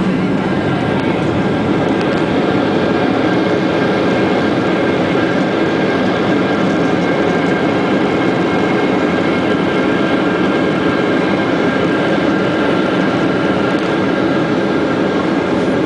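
Cabin noise of a Ryanair Boeing 737 on the runway during its landing roll: a loud, steady roar of jet engines and rolling wheels with a few steady whining tones above it.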